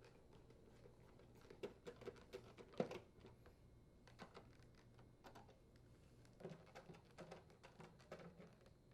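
Faint, scattered clicks and taps of screws being driven by hand with a Phillips screwdriver into a dryer door's inner and outer panels, the sharpest tap about three seconds in.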